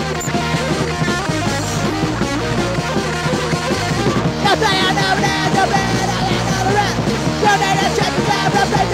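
Mid-1990s garage punk band playing hard and fast on electric guitars, bass and drums, from a vinyl record pressing. A shouted-sounding vocal line comes in about halfway through.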